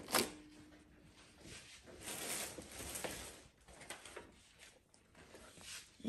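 Unpacking handling sounds: plastic wrap and a paper sheet rustling, with a few small clicks and taps.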